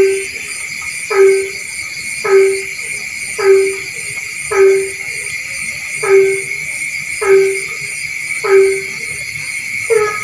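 A frog calling over and over in short, low, horn-like calls, about one every second and a bit, over a steady high-pitched chorus of night insects.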